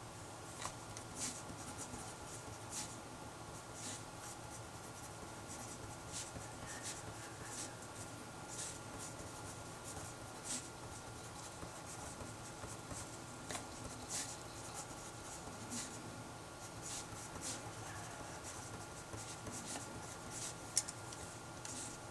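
Handwriting: a pen scratching out short, irregular strokes, a few each second, as maths working is written out, with one sharper tap near the end.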